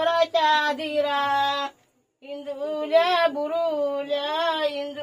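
High women's voices singing a traditional Gauri folk song together, a repeated refrain with a wavering melody. The singing cuts out completely for a moment near the middle, then picks up again.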